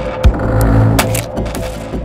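Background music with a held low drone, a deep thud just after the start and sharp percussive hits about a second in.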